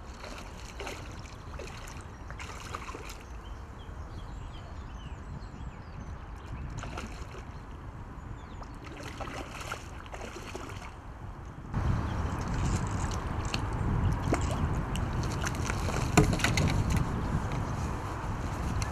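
A hooked carp splashing and sloshing at the surface close to the bank as it is played into a landing net. About twelve seconds in the noise gets suddenly louder, with a low rumble and sharp splashes, the loudest about sixteen seconds in.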